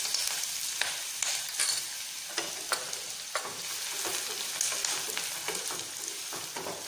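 Chopped onion sizzling in hot oil in a pan, with a spoon scraping and stirring it now and then.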